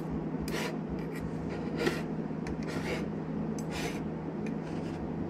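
Irregular short scratchy rubbing noises, about one a second, from gloved hands moving near the microphone, over a steady low hum.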